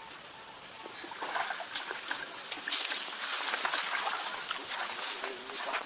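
Water splashing and sloshing in shallow water, busy with many small splashes and clicks, growing louder about a second in.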